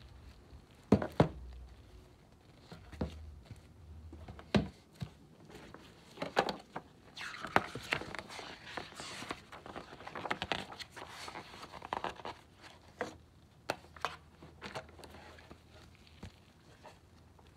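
Board-game contents being handled: shrink-wrapped cardboard crinkling and a rulebook's pages being leafed through, with scattered sharp taps and knocks of card against the box, the loudest about a second in.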